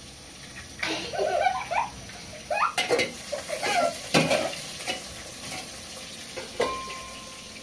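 Small children's voices in short, high-pitched bursts of chatter and laughter, with a few sharp clicks or knocks in the middle and a brief steady tone near the end.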